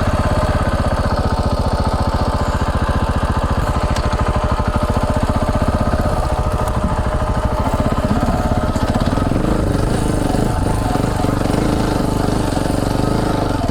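KTM 690 Enduro R's single-cylinder engine pulling steadily at low revs as the dual-sport climbs a steep, loose hill, its firing strokes heard as a fast, even pulse.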